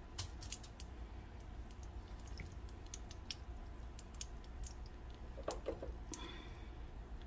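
Floured salmon croquettes frying in oil in a skillet: a faint, irregular crackle of small pops. The oil is still coming up to heat. A brief louder handling sound about five and a half seconds in.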